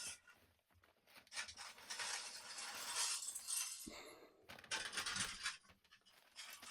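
A plastic bag of Lego pieces being handled and opened: the plastic crinkles and small pieces clink inside. There is a short knock about four seconds in.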